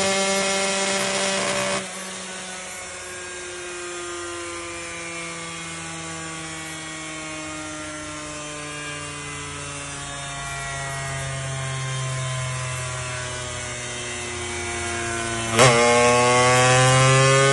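Racing motorcycle engine running at high revs. The throttle closes about two seconds in and the revs fall slowly for many seconds; near the end a sharp click comes, and the revs climb again, louder.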